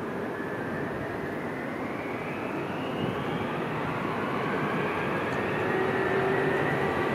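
Pratt & Whitney JT9D-7R4D turbofans of a Boeing 767-200 freighter spooling up for takeoff: a steady jet roar with whines that rise in pitch, growing louder.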